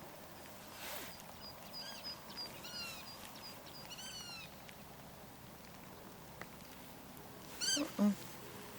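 A bird calling: a series of short arched, slurred calls, then a louder call near the end, over faint outdoor background noise.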